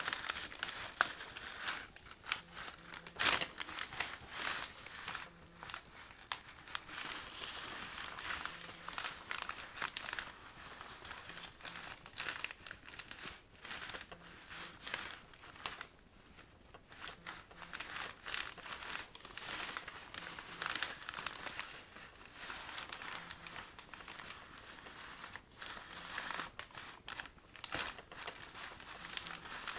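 Brown paper bags rustling and crinkling as they are handled and shifted, with irregular sharp crackles of paper throughout.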